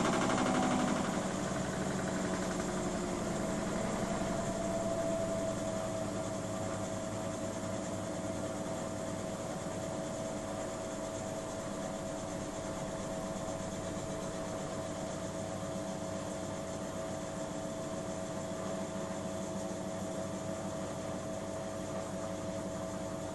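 Miele W 5963 washing machine drum spinning steadily with a constant whine. A louder noise, part of the spin-cycle fault that returned after a shop repair, dies away in the first second or two.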